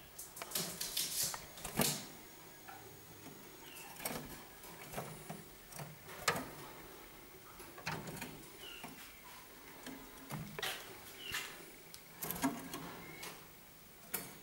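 Scattered clicks and rustling, irregular throughout, with a few short soft chirps from Harzer roller canaries.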